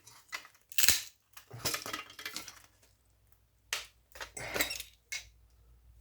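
Metal clinking and scraping as aluminium heatsinks are worked off a power supply circuit board, a string of sharp clinks with a short pause in the middle.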